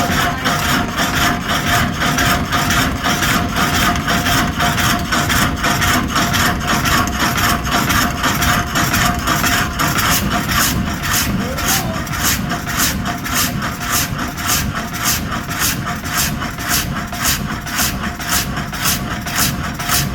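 Water-turbine-driven 7-foot up-and-down sawmill blade running, its blade and rocker arm working in an even beat of about two strokes a second over a steady high hum.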